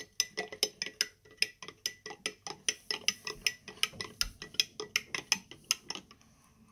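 Plastic spoon stirring milk in a glass mason jar, ticking against the glass about five times a second; the stirring stops near the end.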